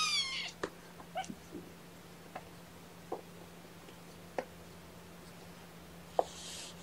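A young kitten gives one short, high-pitched mew that falls in pitch, followed by a few faint clicks and a short soft rustle near the end.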